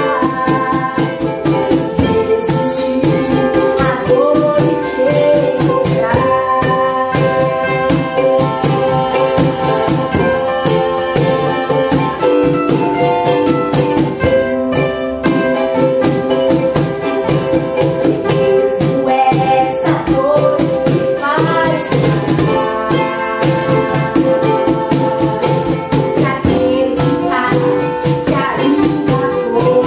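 Acoustic guitar, cajon and ukulele playing a Christian hymn together, the cajon keeping a steady beat, with a woman singing near the end.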